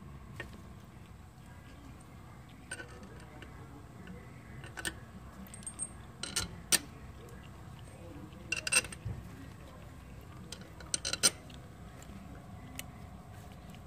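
Scattered sharp metal clinks and clicks of a ratchet and head bolts against an LS cylinder head, in small clusters every second or two, as the head bolts are run down by hand.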